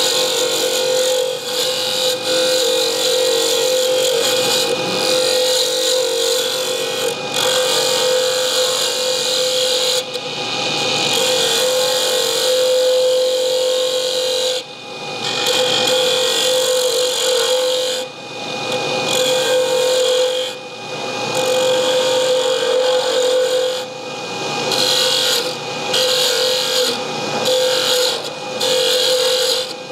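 Pen blank being shaped on a spinning mini wood lathe: a continuous rasping scrape of the work against the turning blank, broken by several short pauses as the hands come off, over a steady motor hum.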